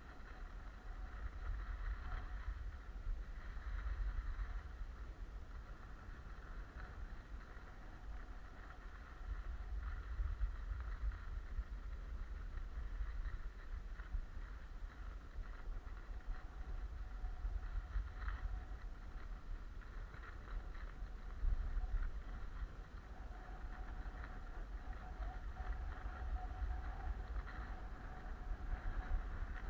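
Wind rumbling on the microphone of a skier's body-worn camera during a downhill run, over the steady hiss and scrape of skis sliding on packed, tracked snow.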